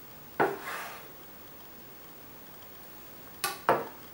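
A chef's knife knocks onto a wooden cutting board about half a second in as it finishes a cut through sponge cake, followed by a short scrape. Near the end, two quick clicks, the first with a brief metallic ring, as a stainless steel mousse ring is set on the board.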